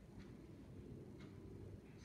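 Faint clicks about once a second over near-silent room noise: a hornworm caterpillar's jaws biting into a leaf.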